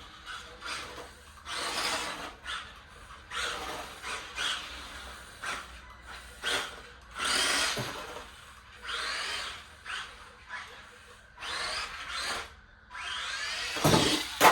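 Small electric motor of a toy RC drift car whining in repeated bursts, its pitch rising and falling as it speeds up and slows. A loud thump comes near the end.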